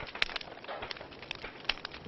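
Wood fire in a fireplace crackling, with irregular sharp pops and snaps over a soft hiss.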